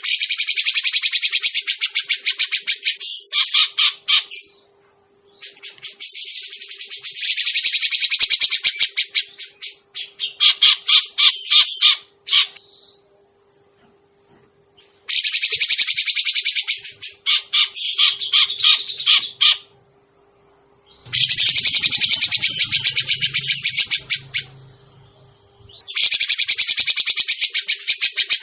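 Cucak jenggot (grey-cheeked bulbul) lure calls: bursts of rapid, high chattering notes, each lasting three to five seconds, repeated about five times with short pauses between. A low hum sounds briefly under the fourth burst.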